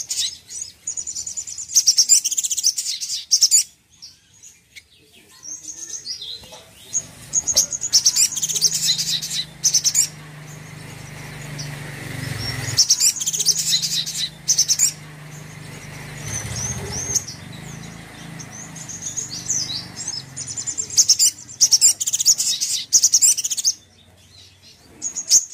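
Sunbird (sogon) singing: several runs of rapid, high-pitched chirping trills a few seconds long each, with pauses between them, and a brief flutter of wings.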